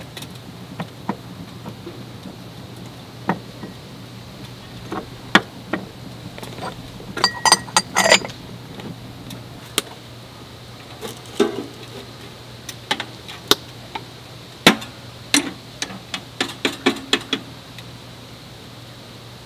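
Scattered sharp clicks and knocks of small dishes and gear being handled, with a quick run of ringing clinks about seven to eight seconds in.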